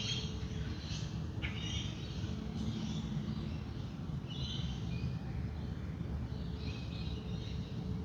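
Wild birds chirping and calling in a dawn chorus, sharp chirps in the first second and a half and warbling calls later, over a steady low rumble. A soft singing bowl tone hums faintly underneath, fading in the middle and returning near the end.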